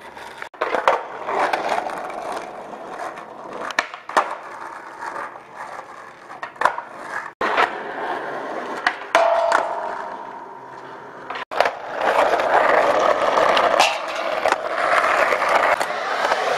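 Skateboard wheels rolling on asphalt and concrete, broken by several sharp clacks of tail pops, landings and the board sliding on a metal flat bar. There are abrupt breaks where separate clips are cut together.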